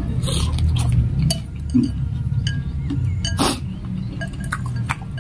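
Metal spoon and fork clinking and scraping against a glass bowl of meatball soup, in many short irregular taps, with eating sounds mixed in, over a low steady hum.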